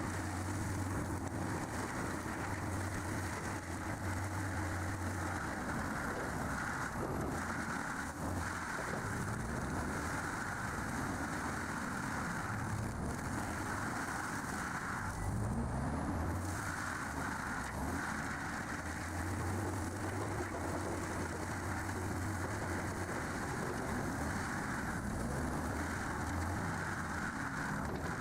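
Stump grinder engine running steadily under load as the cutter wheel grinds into a stump, with a brief rise in engine pitch about halfway through.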